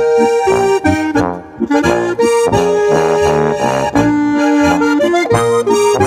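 A Bavarian folk trio playing a Boarischer, a traditional dance tune, with a melody line over shifting bass notes.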